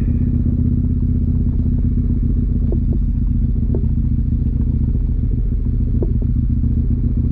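KTM motorcycle engine running steadily while riding, with a few brief faint squeaks over it.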